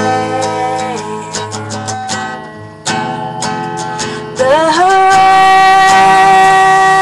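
A female voice singing long held notes over acoustic guitar strumming. A held note fades about a second in, the guitar carries on alone, and a new note slides up at about four and a half seconds and is held.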